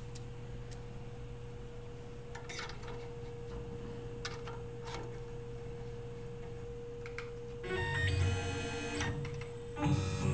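Steady low hum with a few light clicks from a dial test indicator and hand tools being handled. Background keyboard music with sustained chords comes in about three-quarters of the way through and is the loudest sound.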